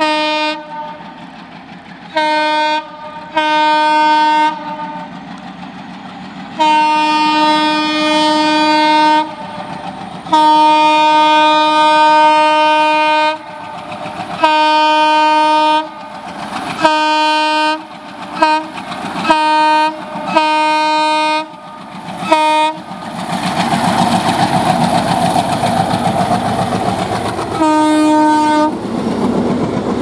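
ALCO WDG-3A diesel locomotive sounding its horn in a long series of blasts, some held for a few seconds and others short quick toots. From about 23 seconds in, the locomotive passes close with its engine running hard and its wheels clattering over the rails, with one more horn blast near the end.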